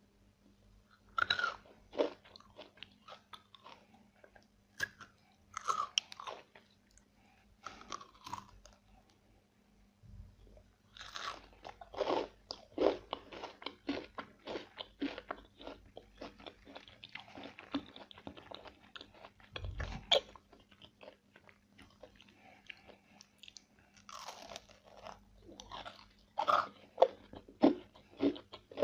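Close-miked biting and crunchy chewing, in bursts of sharp crackles with short pauses between.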